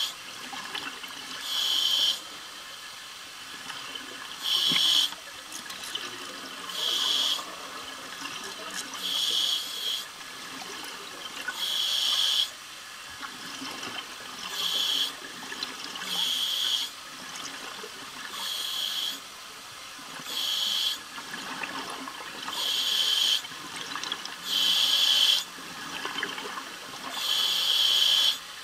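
Scuba diver breathing through a regulator underwater: a sharp hiss with each breath, about one every two seconds, with bubbling and gurgling of exhaled air between them.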